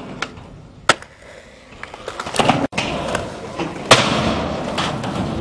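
Skateboard wheels rolling on concrete and ramps, with sharp clacks of the board popping and landing: one crack about a second in, a few quick hits around two and a half seconds, and the loudest clack about four seconds in, with louder rolling around it.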